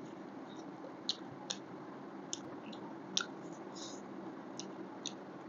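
A person chewing food close to the microphone: a string of wet mouth smacks and clicks, about six of them, over a steady low background noise.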